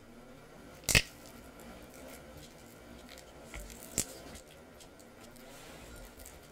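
A spatula mashing and smearing softened cream cheese against the side of a glass bowl, with soft squishing and scraping. There is a sharp clack of the spatula against the glass about a second in and a smaller one near four seconds.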